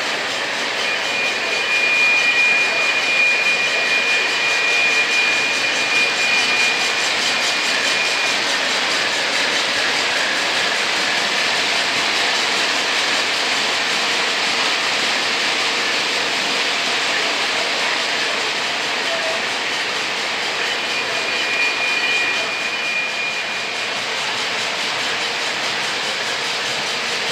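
Lionel O gauge model trains running on three-rail track: a steady rolling rumble and motor whir. A thin, steady high tone is held for several seconds near the start and again for a few seconds about 21 seconds in.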